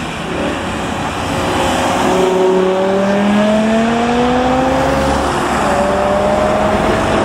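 A car's engine pulling away under acceleration, its note rising steadily for several seconds, over the rumble of road traffic.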